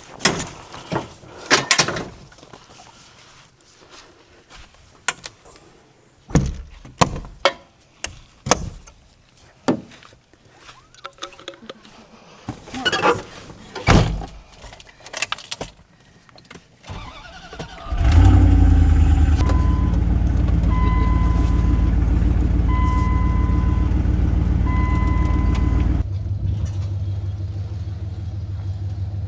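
A series of knocks and clunks, then a truck engine starts about two-thirds of the way in and runs at a fast idle while a warning chime dings several times; near the end the engine settles to a lower, steady idle.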